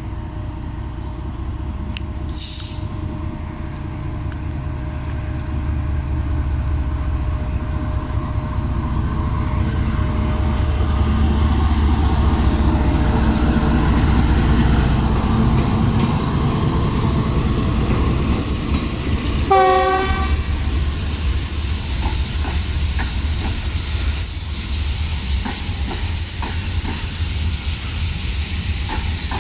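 Diesel locomotive hauling a slow coal hopper train past, with a low rumble that builds to its loudest about halfway through and then the clatter of the wagons. A short horn blast sounds about two-thirds of the way in.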